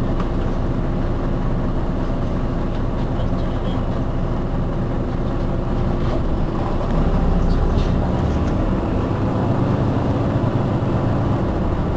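Iveco Urbanway 18 articulated city bus idling at a stop, its engine running steadily. About seven seconds in, the engine note rises slightly and gets a little louder.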